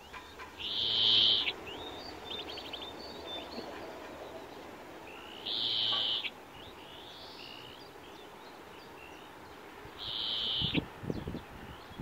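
European greenfinch calling: three long drawn-out notes about four to five seconds apart, with softer short notes and a quick trill between them. A few low thumps near the end.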